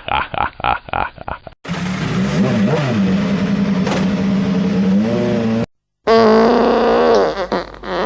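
Edited sound effects: a loud buzzing tone, mostly steady in pitch with a few wavering swoops, that cuts off suddenly near six seconds; after a short gap, another buzzing tone that wavers in pitch. A brief stretch of speech comes first.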